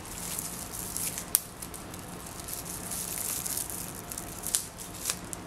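Soft rustling of a plastic-lined ear wrap and hair as a small rubber elastic band is twisted tightly around the wrapped poodle ear, with a few sharp little clicks: one about a second and a half in, two more near the end.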